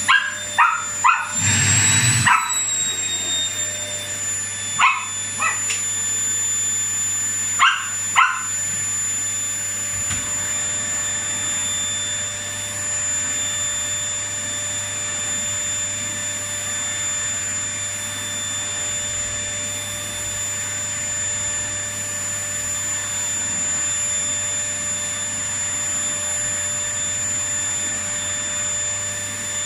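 Vacuum cleaner running steadily with a high whine, while a small dog gives about eight sharp barks, mostly in quick pairs, over the first eight seconds, excited by the vacuum.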